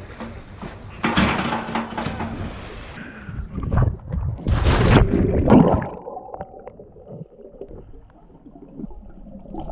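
A loud splash of a body going into a swimming pool about halfway through, after which the sound turns dull and muffled, heard from under the water.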